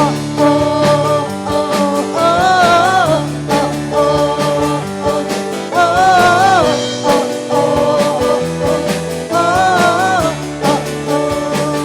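Worship band music between sung lines: sustained chords with a melody phrase that bends in pitch, returning about every three and a half seconds.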